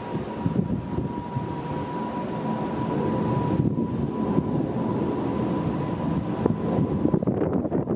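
Jet engines of an Emirates passenger airliner climbing out after takeoff: a steady low rumble that builds a little over the first few seconds, with a thin steady whine running through it.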